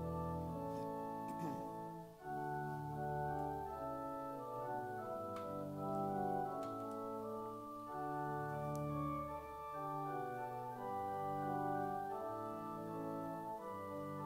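Church organ playing slow, sustained chords that change about every second or so.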